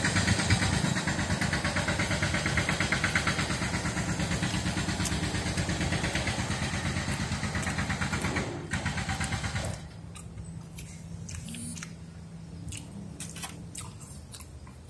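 A loud engine running close by with a fast, even pulse, cutting out about ten seconds in; it comes from nearby construction work. After it stops, only faint scattered clicks remain.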